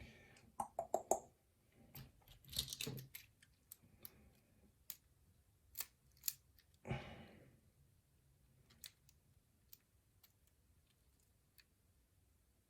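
Faint metallic clicks and small rattles of lock cylinder parts being handled while the lock is put back together, with a few louder clatters near the start, around two and a half seconds in and about seven seconds in.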